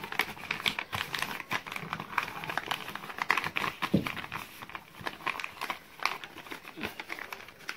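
A sheet of paper being folded and creased by hand into a small packet, crinkling with irregular small crackles.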